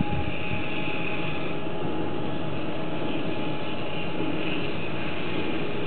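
Electric drive of a railway switch, fed from a frequency converter, running steadily with a constant whine over a hissing mechanical noise, not yet at full speed.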